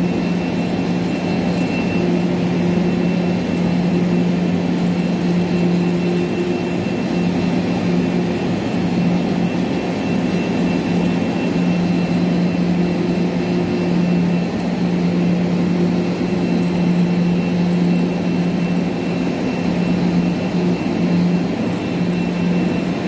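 CNC leather-cutting machine for car floor mats running: a steady machine hum with a constant faint high whine.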